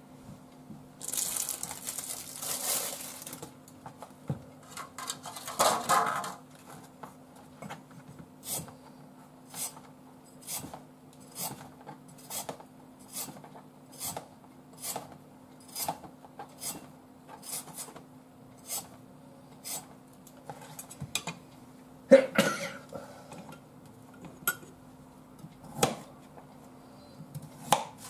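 Plastic wrap rustling, then a hand peeler scraping down a carrot in short, even strokes about once a second. Later comes a louder knock on the cutting board and a few knife strokes through the carrot.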